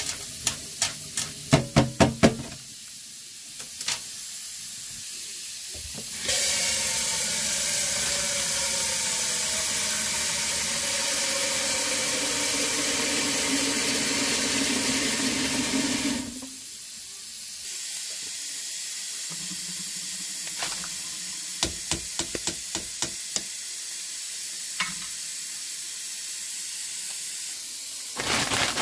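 A running tap fills a large metal cooking pot in a steel sink for about ten seconds, its pitch slowly shifting as the water rises, then shuts off. Before it, a metal colander of rinsed chopped vegetables is shaken, knocking a few times against the sink. Afterwards there is a steady hiss with scattered light clicks, and near the end a plastic bag of frozen spinach crinkles.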